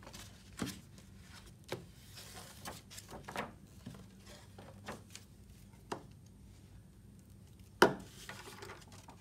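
Glue stick rubbing on paper and sheets of paper handled and pressed flat on a tabletop, with scattered light taps and one sharp knock near the end.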